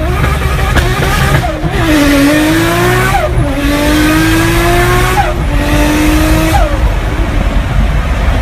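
Electronic engine sound effect from a toy race car's built-in speaker: a recorded engine revving up, its pitch climbing and then dropping sharply at each gear change, several times over, above a steady low rumble.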